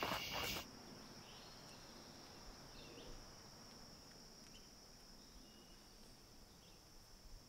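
Faint outdoor ambience of a steady high insect drone with a few faint, scattered bird chirps. A slightly louder burst of night-time cricket sound cuts off abruptly about half a second in.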